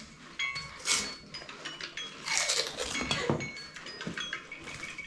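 People eating panipuri, crunching the crisp puris and slurping the spiced water, in a short burst about a second in and a longer run in the middle. Faint short high-pitched tones sound in between.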